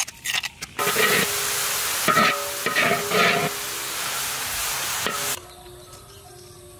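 A few clicks of a metal spoon scraping a stone mortar, then loud sizzling of food frying in hot oil for about four and a half seconds, which cuts off abruptly; soft background music follows.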